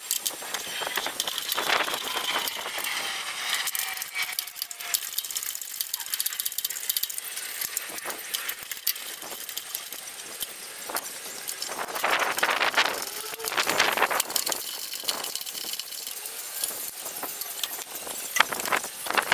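Socket wrench working the bolts that hold the old engine on a snowblower: metal clicks and clinks with a few short squeaks, and a denser run of rapid clicking about twelve seconds in.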